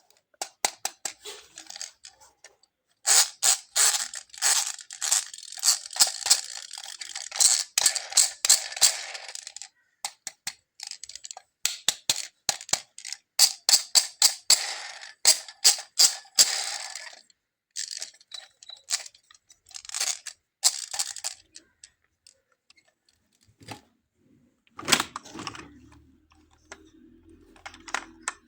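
Plastic toy packaging and toy cars being handled and unboxed by hand: two long bursts of crinkling with many sharp clicks and taps, then a few separate knocks. A short low hum comes in near the end.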